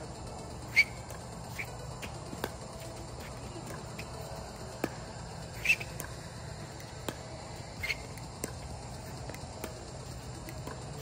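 Pickleball paddles striking a plastic ball in a quick doubles rally at the net: a string of sharp hollow pops at irregular intervals of roughly a second. The loudest pops come about a second in and near the middle.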